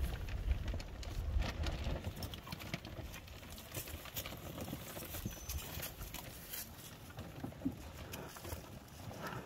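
Cattle grazing close by: irregular crunching and tearing of grass as they crop and chew, with a low rumble during the first two seconds.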